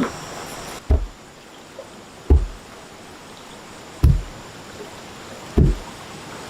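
Dull, heavy thuds repeated five times, spaced about one to one and a half seconds apart, over a faint steady hiss.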